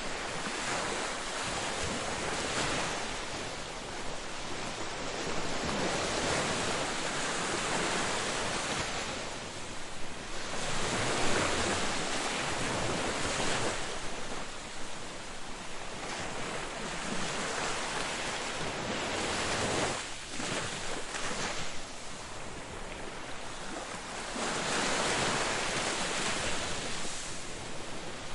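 Ocean waves breaking on a beach, a continuous surf wash that swells and ebbs every few seconds.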